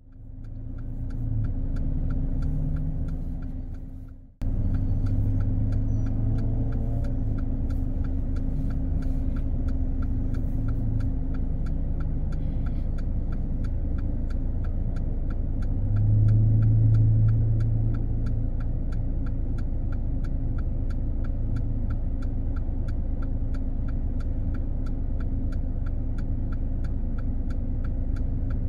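Car waiting at a red turn arrow with its engine idling as a steady low rumble, and the turn-indicator relay ticking regularly over it. The sound fades in at the start, drops out for a moment about four seconds in, and the rumble swells briefly around the middle.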